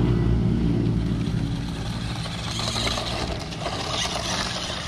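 A SUNTEX S727 1:16 toy RC monster truck drives across loose gravel. Its small electric motor drones and fades out over the first second or two. After that comes a rough rattle and crunch of its tyres over the stones.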